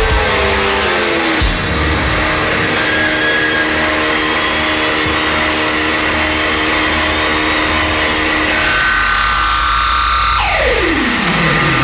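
Electric guitar feedback and amplifier noise at the close of a rock set. Held tones drone over a noisy wash, shift pitch a few times, and near the end several tones slide steeply downward.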